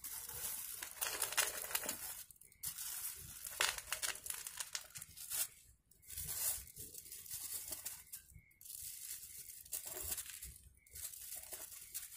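Thin plastic bag crinkling and rustling as hands handle it, in several bouts with short pauses between.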